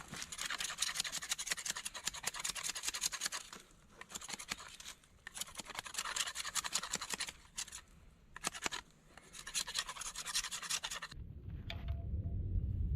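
Rapid scratching, rasping strokes, like something being scraped or rubbed by hand, coming in several bursts of a few seconds each. They stop about eleven seconds in, and a low rumble takes over near the end.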